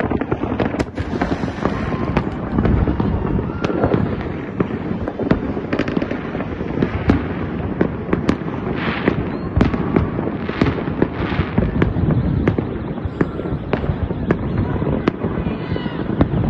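Many fireworks going off across the city at once: a continuous rumble of distant bangs, with frequent sharper cracks over it and a few brief bursts of crackle about halfway through.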